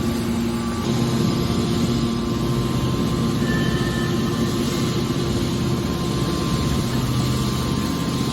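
Hydraulic scrap car baler's power unit running steadily, a constant mechanical hum with a low drone and faint higher whining tones.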